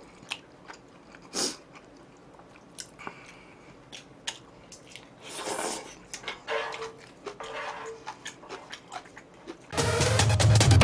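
Close-up eating sounds of someone chewing and biting noodles, with scattered small clicks and a few short soft rustles. Loud electronic dance music starts abruptly near the end.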